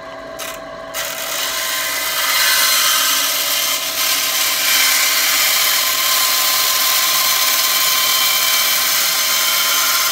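A benchtop band saw running and cutting through white PVC drain pipe. The motor runs quieter for about the first second, then a loud, steady cutting noise sets in as the blade goes into the plastic and holds.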